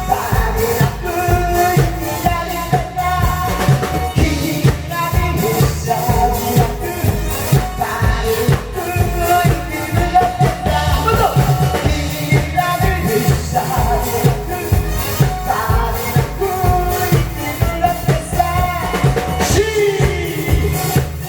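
Song with a singing voice over a steady drum beat, played loud at an outdoor street-entertainment show.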